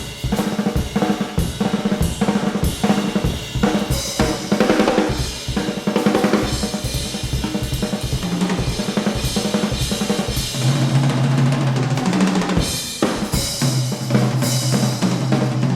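Jazz drum kit solo played live: rapid snare and bass-drum strokes under ride and hi-hat cymbals. Low held notes come in under the drums in the last few seconds.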